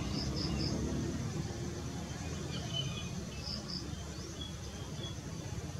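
Outdoor background: a steady low rumble with a few faint, short high chirps in twos and threes, about a second in and again past the middle.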